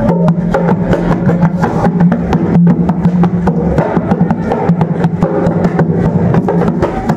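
Dholak, the two-headed barrel drum, played fast by hand: a dense, loud run of strokes, several a second, over a steady low ringing note from the bass head.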